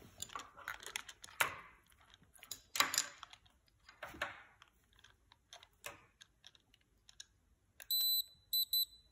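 Hands clicking and tapping a pair of glasses and a small light sensor against a phone screen on a glass tabletop. Near the end comes a high electronic beep: one longer tone followed by two short ones.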